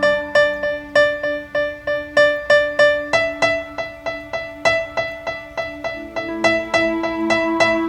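Ambient keyboard music: a steady run of repeating struck notes, about three a second, over held low notes, with the harmony shifting twice.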